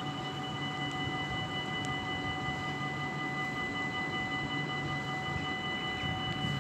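Dutch level-crossing warning bells ringing steadily, a continuous multi-toned ring, while the crossing is closed with barriers down and red lights flashing.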